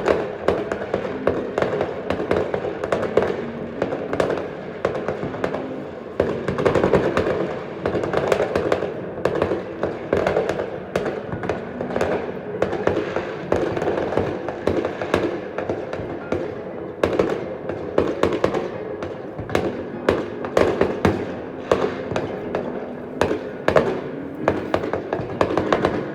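Fireworks going off: a dense, continuous run of rapid pops and crackles with no break.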